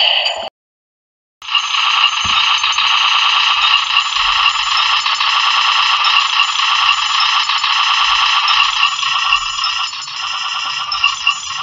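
Tinny rapid-fire machine-gun sound effect, a high rattling buzz: a short burst at the start, then after about a second's pause an unbroken stream of roughly ten seconds, standing in for a minigun's fire.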